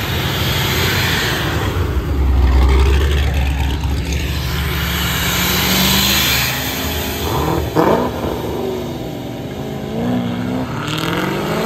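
Cars accelerating hard past, engines revving. A deep exhaust rumble peaks about two seconds in, and later the engine pitch rises and falls in sweeps.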